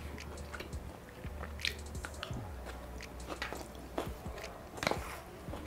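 Close-miked chewing of a mouthful of shawarma rice, with wet mouth clicks. A few sharper clicks come as a wooden spoon scrapes through the foil-lined paper tray, about four seconds in.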